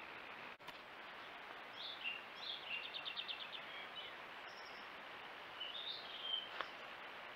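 A songbird singing two short phrases of chirps, the first with a fast trill of repeated high notes, over the steady hiss of a trail camera's microphone. A single click near the end.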